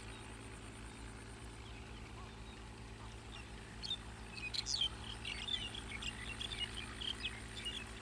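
A bird chirping in a quick run of short high notes, starting about four seconds in, over a steady low hum.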